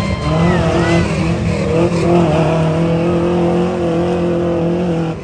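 Off-road race truck engine running hard at high revs. Its pitch dips briefly about a second in, then holds steady, and the sound cuts off suddenly at the end.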